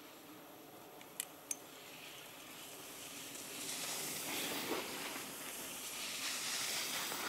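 Skis hissing and scraping over groomed snow, growing louder from about halfway through. Two short clicks just over a second in.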